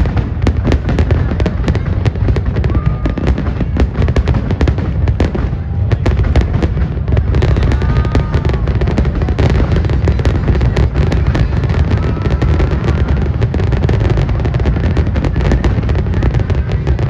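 Aerial fireworks display in a dense barrage: rapid, overlapping bangs over a continuous low rumble, with a few short whistles heard above it.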